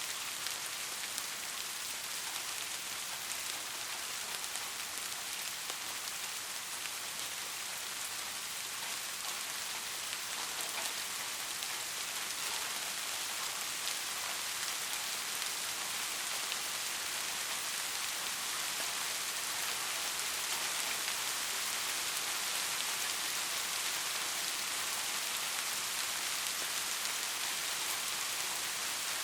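Steady rain: an even, dense hiss of falling drops that grows a little louder over the second half.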